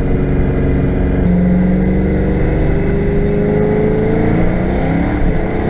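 Fox-body Ford Mustang's 5.0 (302) V8 pulling hard, heard from inside the car: from about a second in the revs climb steadily, then drop away near the end.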